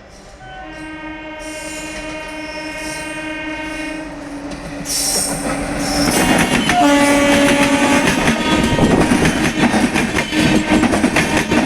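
Express train's twin-tone locomotive horn sounding one long blast as the train comes up, louder as it nears. About six seconds in the train passes close by with loud wheel clatter and rumble, and the horn sounds again, more briefly.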